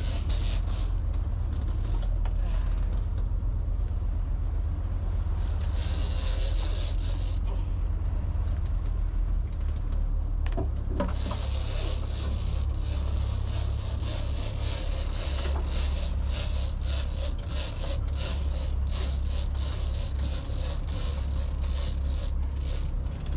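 Fishing boat under way, its engine a steady low drone, with a hiss of wind and water that swells and fades.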